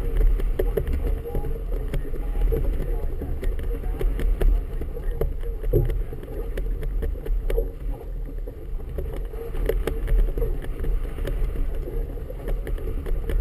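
Wind buffeting the camera's waterproof housing over choppy harbour water slapping against a small boat's hull: a steady, loud low rumble with scattered short knocks.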